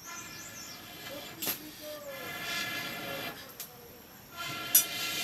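Steam whistling from a cooking pot on a wood fire: a steady pitched hiss that swells, dies away briefly and comes back near the end. A sharp click about one and a half seconds in, and two knocks near the end.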